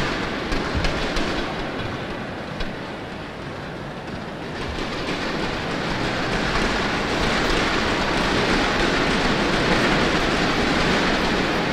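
Crowd noise in an indoor sports hall, a dense hiss of applause and chatter, with a few sharp taps in the first three seconds. It dips about three seconds in, then swells and holds.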